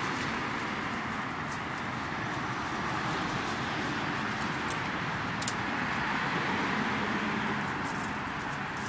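Steady background noise of street traffic, with a couple of faint sharp clicks about halfway through.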